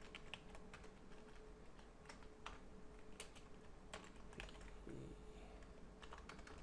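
Faint computer-keyboard typing: irregular, quick keystrokes over a steady low hum.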